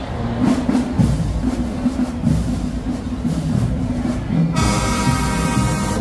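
Marching band playing: low brass and drum strokes, with the sound turning suddenly brighter and fuller about four and a half seconds in.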